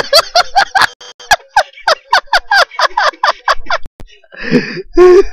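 A man laughing hard: a long run of quick 'ha' bursts, about five a second, breaking off near the end into a breathy gasp.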